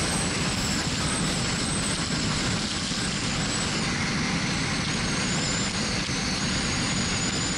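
Yamaha Drag Star V-twin cruiser motorcycle running steadily at road speed, its engine mixed with steady wind rush on the camera microphone.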